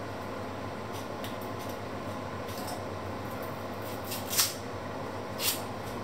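Small kitchen knife peeling and scraping the dry papery skin off an onion: faint scratching, then two short crisp scrapes about a second apart near the end, over a steady low hum.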